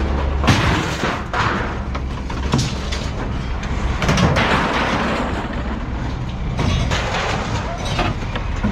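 Scrap steel and old appliances being thrown off a truck onto a scrapyard pile: repeated crashes and clanging of sheet metal, with rattling clatter between the impacts.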